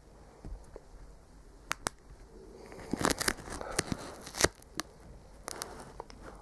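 Duct tape handled and stretched by hand, giving irregular sharp crackles and crinkles, bunched a little past the middle, with the loudest snap about four and a half seconds in.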